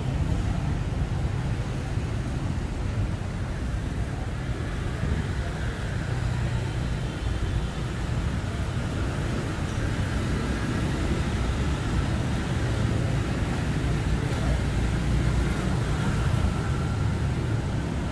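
Steady city street traffic noise: a continuous low rumble of passing vehicles.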